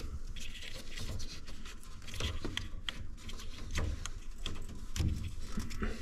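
Hands moving cables and fitting parts inside a boiler casing: scattered light clicks and rustling, with a few soft knocks.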